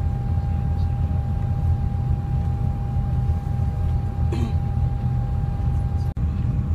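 Cabin noise of a Sado Kisen jetfoil cruising foilborne at about 75 km/h: a steady low drone from its gas-turbine waterjet propulsion, with one steady high tone running over it. The sound drops out briefly near the end.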